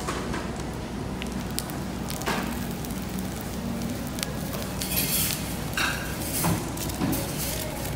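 Hot stone bowls of Korean food sizzling and crackling, with scattered clinks of tableware and the rustle of a paper chopstick sleeve being pulled off.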